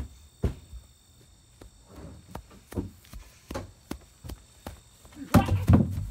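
Running footsteps as a string of sharp knocks, then a burst of loud thumps near the end as a person and a plastic trash can hit the ground.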